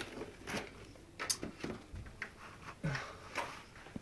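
Faint handling noises: scattered light rustles and small clicks as small case accessories and their plastic packaging are handled.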